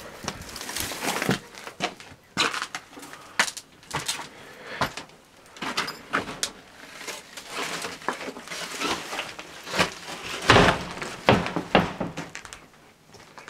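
Footsteps crunching and scuffing over debris on a cabin floor, with irregular crackles and knocks and one louder thump about three quarters of the way through.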